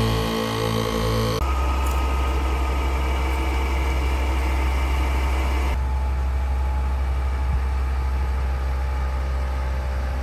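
ARB twin air compressor running steadily, inflating all four tyres at once; it is heard up close inside the cab for about the first second and a half. Then the sound changes suddenly to a steady low drone of the idling Jeep with the compressor still running, heard outside by the wheels.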